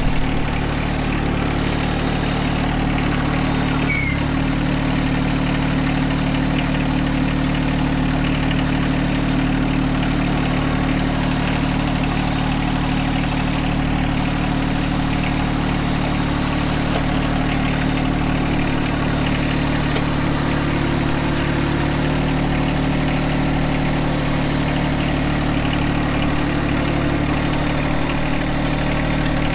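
John Deere 1025R compact tractor's three-cylinder diesel engine running at a steady, even speed.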